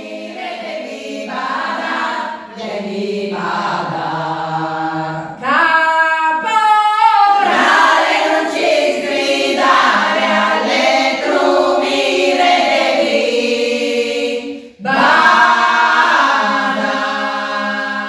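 Choir of women, former rice-field weeders (mondine), singing unaccompanied in chorus. The singing grows louder about five seconds in, with a brief break near the end.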